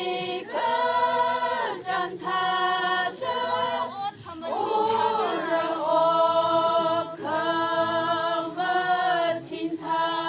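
A group of voices singing unaccompanied in long held notes, with short breaks between phrases.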